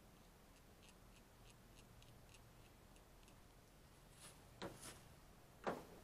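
Faint, even ticking, about three ticks a second, as a bolt's threads are worked against a stick of blue Loctite threadlocker paste. Near the end come a few light knocks of metal hardware, the loudest as it is set on the truck's bed rail.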